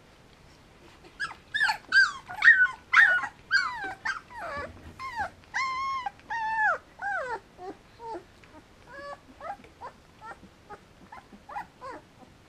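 Samoyed whimpering and whining. A quick string of high, pitch-bending whimpers starts about a second in, followed by a few longer falling whines around the middle, then fainter, sparser whimpers toward the end.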